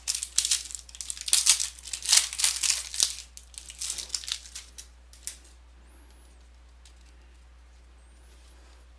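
Foil wrapper of a basketball card pack crinkling and tearing as it is opened, a rapid run of crackles that stops about five seconds in.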